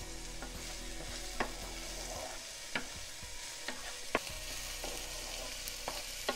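Chopped onion, garlic, ginger and tomato sizzling in hot oil in a frying pan, stirred with a utensil that scrapes and gives a few sharp taps against the pan.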